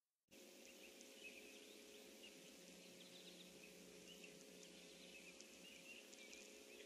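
Near silence: faint outdoor pond ambience through a livestream microphone, a steady low hum and hiss with faint, scattered high chirps. The sound cuts out briefly at the very start.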